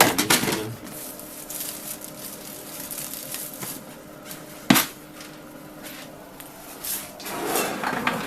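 Workshop handling noise: light clicks and rustling with one sharp knock about halfway through, as a 1.2 mm shim washer is fetched from a parts assortment box.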